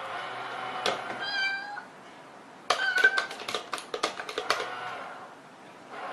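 Domestic cat meowing once, about a second in. A quick run of sharp clicks and taps follows, with a short mew among them.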